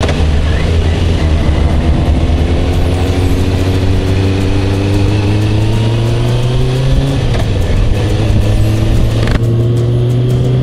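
Kawasaki ZZR400's inline-four engine running under load on the move, its pitch climbing slowly through a gear, dropping at a shift about seven seconds in and climbing again, over a steady rush of noise.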